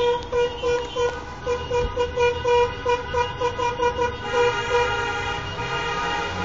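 Car horns honking in celebration from a wedding convoy: quick short toots, about four a second, then a longer held blast from about two thirds of the way in.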